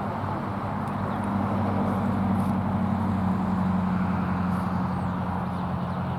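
Vehicle traffic: a steady low hum with a rushing noise that swells about a second in and eases off again near the end.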